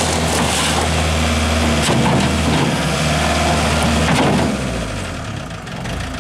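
New Holland LX665 skid steer's turbo diesel engine running at working speed while the tyres crunch and scrub over gravel. About four and a half seconds in, the machine stops, the crunching ends and the engine drops back to a quieter idle.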